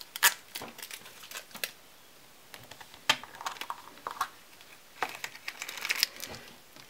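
Hard plastic gashapon capsule being handled and snapped open, with scattered sharp plastic clicks. Near the end comes a burst of crinkling as the plastic bag holding the charm inside is handled.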